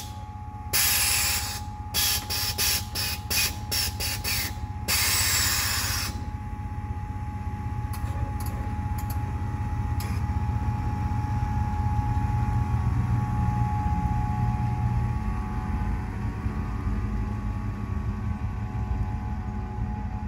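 Air suspension valves on a bagged 1987 Chevrolet Astro van venting air from the bags as it is let down. There is a long hiss, then a quick string of short hisses, then another long hiss. After that a steady low running sound carries on.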